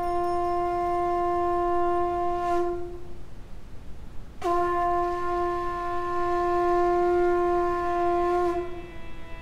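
Conch shell (shankha) blown in two long blasts at one steady pitch. The first ends about three seconds in, and the second starts about a second and a half later and holds for about four seconds.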